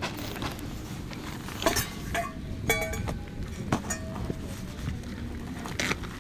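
Metal tent stakes being pushed by hand into a grass lawn: a few scattered light clinks and knocks, two with a brief metallic ring, over a steady low rumble.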